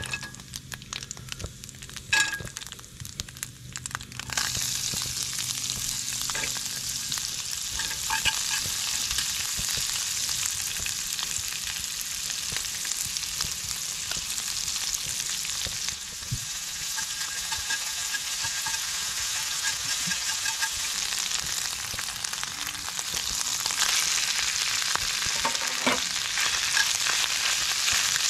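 Food frying in oil in a cast-iron skillet: a steady sizzle that starts in earnest about four seconds in, after a few clicks, and grows louder again near the end.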